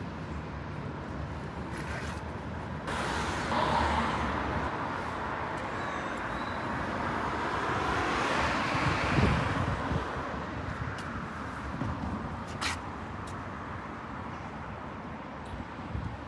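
Road traffic noise: a vehicle passing by, its hiss swelling for several seconds in the middle and then fading.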